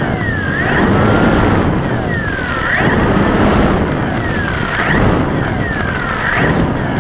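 Electric motor and propeller of an E-Flite Timber RC plane taxiing on grass, throttled up and down in about four bursts. The motor's whine falls and rises in pitch with each burst, and propeller wash rushes over the belly-mounted camera's microphone.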